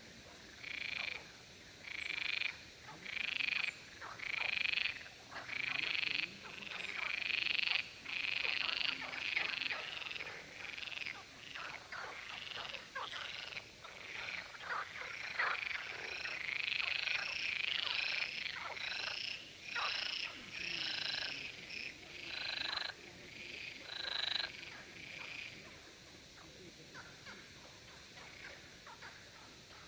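A chorus of male frogs croaking in competition, calls coming about once a second over a crowd of short clicking notes. The chorus swells and then dies away about three-quarters of the way through, leaving faint scattered clicks.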